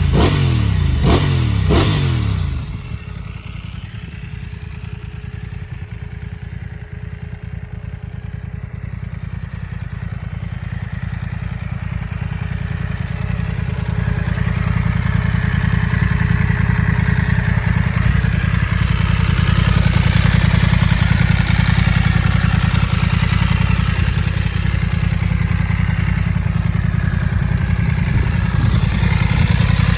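BMW F900R's parallel-twin engine revved with two quick throttle blips, revs falling back each time, then settling into a steady idle. The running grows louder about halfway through.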